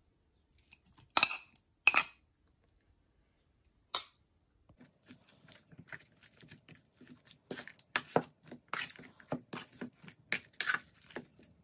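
A metal spoon clinks sharply against a bowl three times as ginger-garlic paste is knocked off it. Then the spoon clicks and scrapes in quick, uneven strokes as chicken drumsticks are stirred into a thick yogurt marinade.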